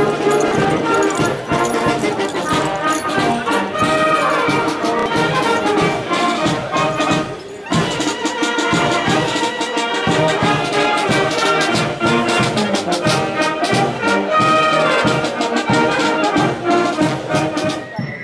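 A brass band playing, with trombones and trumpets over a steady drumbeat. The music drops away briefly about seven and a half seconds in.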